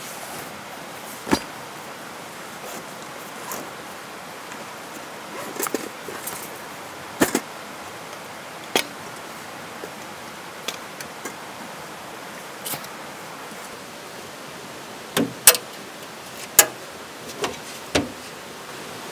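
Scattered clinks, clicks and knocks of camping gear being handled at the open back of a Jeep, about a dozen sharp sounds, the loudest coming close together near the end. Under them runs the steady rush of a creek with rapids.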